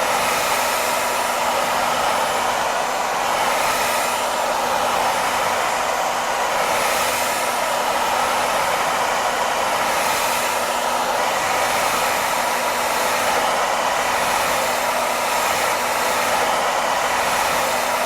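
Hair dryer running continuously at a steady pitch, an even rushing blow of air with a faint motor hum underneath.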